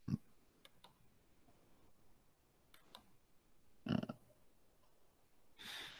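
Quiet room tone broken by a few faint, brief clicks. A short louder sound comes about four seconds in, and a breathy hiss near the end.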